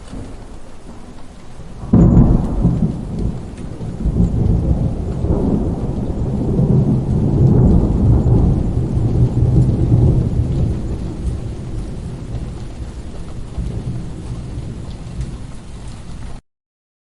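Steady rain with a sudden thunderclap about two seconds in, followed by a long low rolling rumble that slowly fades. The sound cuts off suddenly near the end.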